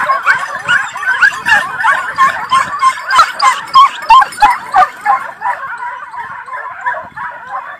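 A pack of hunting dogs giving many overlapping, excited yelps and barks as they go after a hare. The cries are loudest for about the first five seconds, then die down somewhat.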